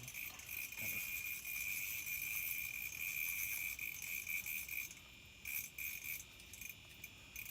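Spinning fishing reel being cranked to bring in a fish, a steady high whirring and ticking that stops about five seconds in, followed by a few short spurts of cranking.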